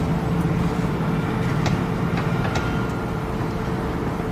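Steady low machine-like hum under a spatula stirring thick halwa in a pan, with a few light clicks of the spatula against the pan about one and a half to two and a half seconds in.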